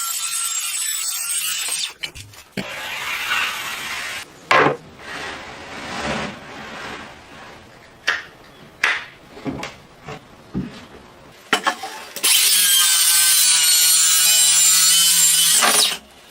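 Woodworking tool sounds. A power tool works wood at first, followed by uneven sawing or rubbing strokes and several sharp knocks. About twelve seconds in, a power tool's motor starts and runs steadily with a hum, then cuts off shortly before the end.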